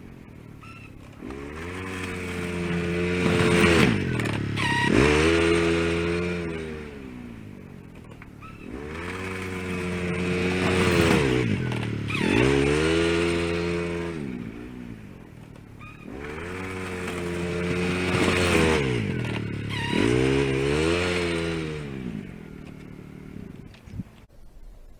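Mule utility vehicle's engine revving up and easing off over and over as it pushes snow with its plow and backs up. Three cycles, each with two surges, a few seconds apart.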